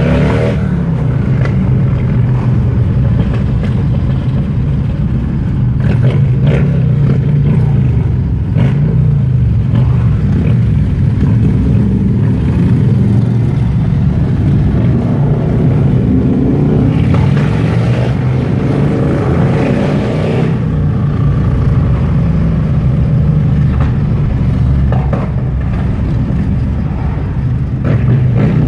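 A pack of cruiser motorcycles riding together, their engines rumbling steadily. The engines rise and fall in pitch as the riders accelerate and slow, most clearly about two-thirds of the way through.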